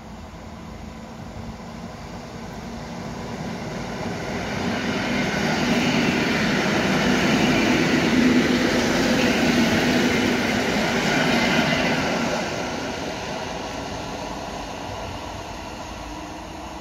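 EN57 electric multiple unit passing on the near track. The running noise of its wheels and the hum of its traction motors build up, are loudest as the carriages go by about halfway through, then fade as it draws away.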